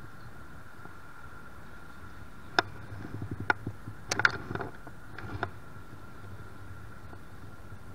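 Rappelling gear clicking and rattling: a sharp click about two and a half seconds in, a run of small ticks, then the loudest cluster of knocks just past four seconds and a last few near five and a half, over a steady hum.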